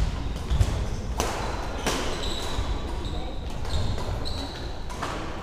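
Badminton rackets hitting the shuttlecock: three sharp cracks, echoing in a large sports hall. Short high squeaks of shoes on the court floor come between the second and third hits, and low thumps come near the start.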